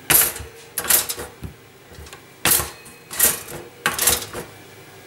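Four-slice toaster's bread carriages clacking as the levers are pushed down to latch and spring back up when cancelled, several sharp clacks about a second apart. The latch now holds down after the crumbs were cleaned out.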